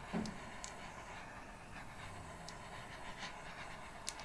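Small handheld butane torch hissing steadily while it is passed over wet acrylic paint to pop surface bubbles.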